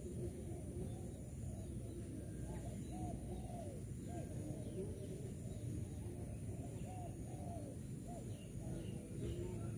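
Spotted dove cooing repeatedly in short, arched coo notes, over a steady low background rumble.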